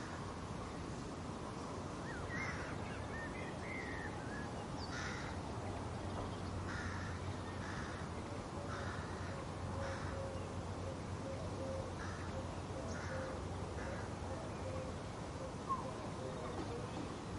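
Garden ambience: a bird gives short, harsh calls every second or two, with a few brief chirps from smaller birds, over a steady low rumble. A single sharp click sounds near the end.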